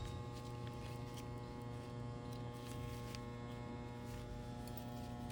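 Steady electrical mains hum with a few faint light clicks.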